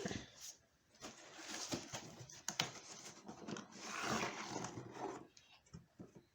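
Faint rustling of packaging and handling noise, with a few light clicks about two and a half seconds in, as a laptop power adapter and its power cords are unpacked.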